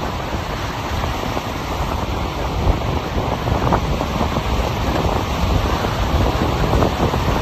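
Wind buffeting the microphone: a loud, steady rushing noise that rumbles most in the low end.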